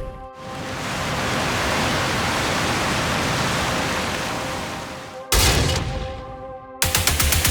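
Action sound effects: a rushing noise swells up and fades over about five seconds. A sudden loud hit follows and dies away, and then rapid automatic gunfire breaks out near the end.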